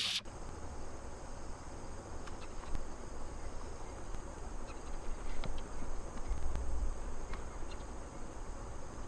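An airbrush's spray hiss cuts off right at the start. After it there is a steady low hum with a faint, steady high-pitched whine over it and a few light ticks.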